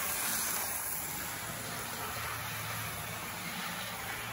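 HO-scale Mehano-built Bachmann GP18 diesel model running smoothly at speed: a steady whir of its motor and drive with the wheels rolling on the track, with a faint low hum under it, easing a little after about a second.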